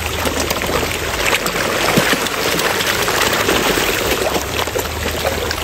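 Koi splashing and thrashing at the pond surface in a feeding frenzy, scrambling for fish food: a dense, continuous patter of small splashes and slurps.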